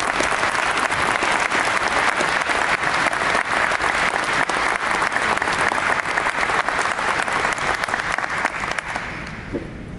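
Audience applauding steadily, fading away near the end.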